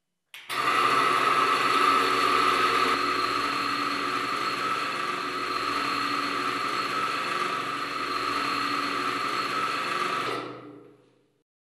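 Reichert friction-wear tester switched on with a click. Its electric motor spins a bearing ring against a static steel roller pressed onto it, making a steady high-pitched whine. The sound is loudest for the first few seconds and eases slightly once the filtered engine oil has built a load-bearing film, then cuts off near the end and runs down over about a second.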